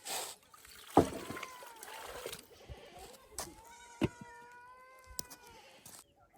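Goats bleating: a short call about a second in, then one long drawn-out bleat from about three and a half seconds in. A few sharp knocks are heard between the calls.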